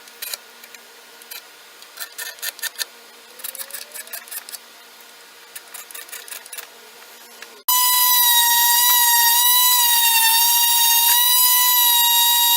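Scattered light clicks and handling knocks over a faint steady hum, then, about eight seconds in, a loud steady electronic beep tone starts abruptly and holds, wavering slightly in pitch.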